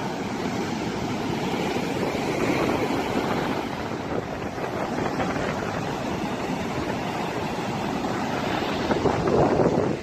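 Heavy sea surf breaking and washing up a sandy beach: a continuous rushing wash that swells louder near the end.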